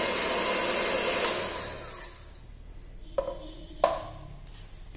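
Electric hand mixer running steadily as it froths butter coffee in a steel pot, then switched off about a second and a half in and winding down. Two sharp knocks with a short ring follow a little over a second apart.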